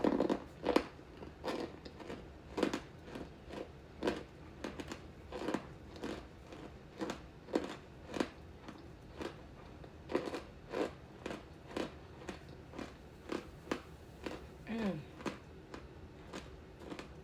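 A person chewing hard, chalky chunks of laundry starch: crisp crunches repeating about one and a half times a second, with a brief hum near the end.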